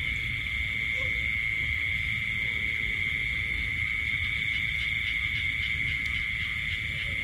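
Steady chorus of night insects: a continuous high-pitched trill that holds one pitch throughout, over a low rumble.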